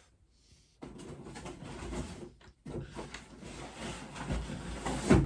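Rummaging in a box of beer cans: a few seconds of rustling and rubbing with a light knock, ending in a brief voice sound.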